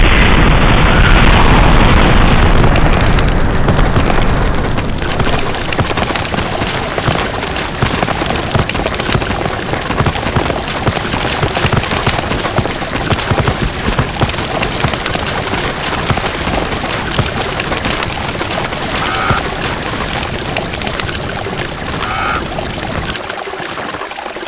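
Campfire bursting into a loud rush of sound that starts suddenly as the object in it explodes, then a dense, continuous crackling and popping of the fire, a little quieter after about four seconds.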